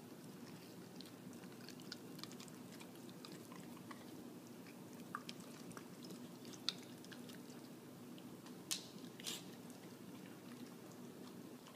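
A corgi eating noodles from a bowl: faint, irregular chewing and lip-smacking clicks, with a couple of sharper clicks about nine seconds in, over a steady low hum.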